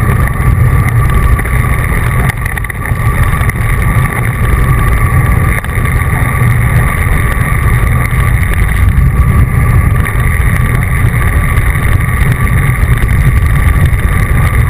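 Wind rushing over a bike-mounted camera's microphone at riding speed: a loud, steady low rumble, with a thin steady hum above it.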